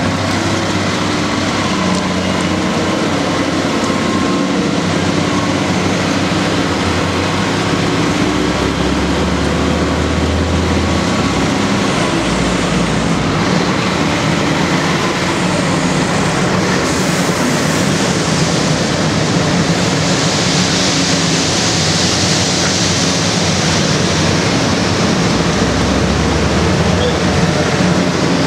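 Heavy road-resurfacing machinery running: a steady diesel engine drone with a hiss that swells about twenty seconds in.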